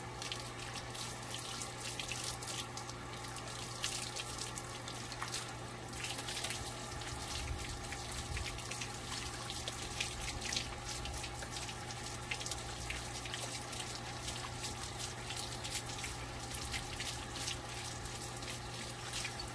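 Water running steadily and spattering as a white Jindo dog is given a bath.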